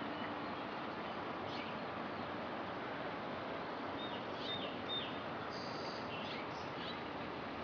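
Steady road-traffic noise, with a few short high bird chirps around the middle.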